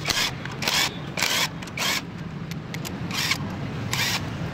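A handheld power wrench spun in about six short bursts, each about a third of a second, as it loosens the clutch pressure-plate bolts on a Yamaha FZ 2.0 engine. A steady low hum runs underneath.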